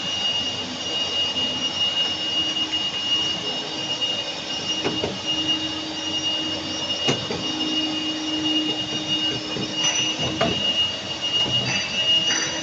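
CNC turret punch press running steadily, a hum with a constant high whine, while a few short knocks sound as the mold guard is taken off.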